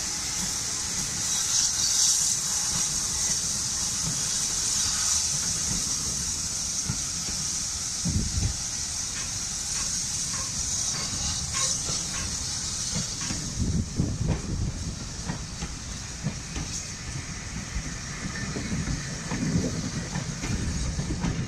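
Steam train pulling out: the GWR 56xx class 0-6-2T tank locomotive gives a steady steam hiss that fades after about thirteen seconds, while its coaches roll past with a low rumble and knocks of wheels over the rail joints.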